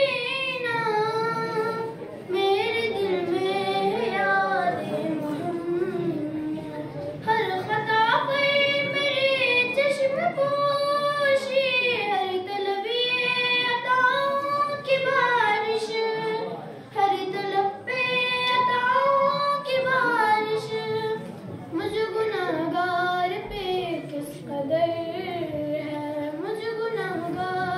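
A young girl singing an Urdu manqabat, a devotional praise poem, in a solo chanting melody with long held, wavering notes and short breaths between lines, with no instruments.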